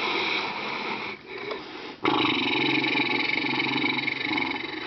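Loud rattling snoring in two long snores: the first fades about a second in, and after a short, weaker breath the second starts about two seconds in and runs almost to the end.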